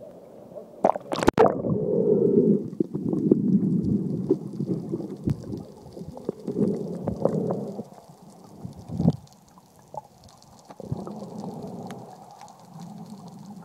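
Water splashing as a camera goes below the surface, then muffled underwater sloshing and gurgling with scattered clicks.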